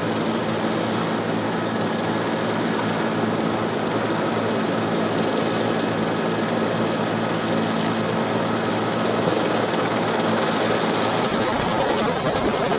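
Steady aircraft noise: an even rush with a low steady hum under it, the hum changing about eleven seconds in.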